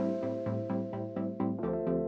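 Electronic background music: sustained synthesizer chords over a steady, fast pulsing beat.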